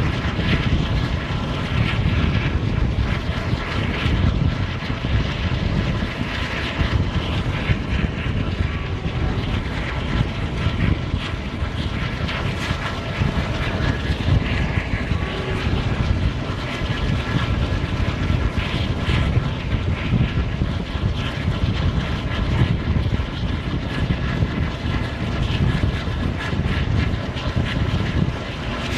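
Diesel-hauled express train running at speed, heard from on board: a steady rumble of coach wheels on the rails and rushing air, with the drone of the ALCO WDG-3A diesel locomotive's engine under load.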